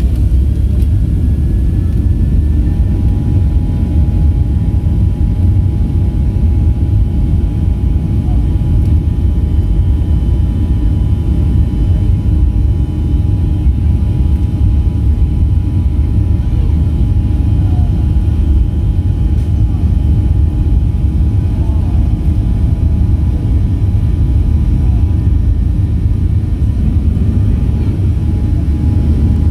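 Cabin noise inside a Boeing 737-700 taxiing: a steady low rumble from its CFM56 engines and the rolling airframe, with thin steady whine tones that set in a few seconds in.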